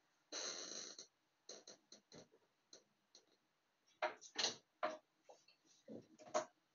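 A short rustle, then irregular light clicks and knocks of objects being handled, the sharpest about four seconds in and near the end.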